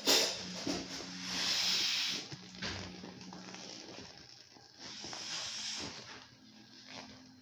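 Air hissing out of an inflatable beach ball as it deflates, in uneven bursts: a sharp rush at the start, a longer, louder one about a second in, and another about five seconds in.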